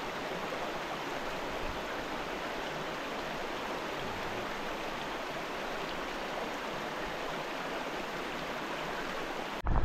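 River water rushing steadily over rocks through a shallow riffle, an even, unbroken sound that cuts off abruptly at the very end.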